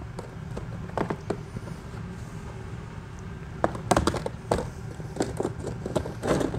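Irregular knocks and clatter of plastic food-storage containers being taken out and rummaged through, a few about a second in and a cluster later on, over a steady low hum.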